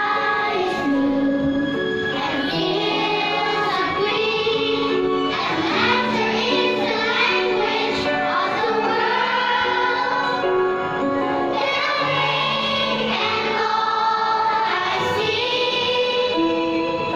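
A group of young children singing together in unison over instrumental accompaniment.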